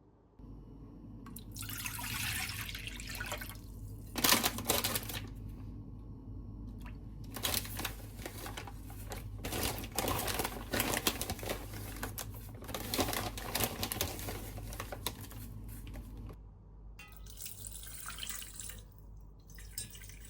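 Water running from a kitchen tap into a sink, flowing in several stretches with brief pauses and a few sharp knocks, over a steady low hum.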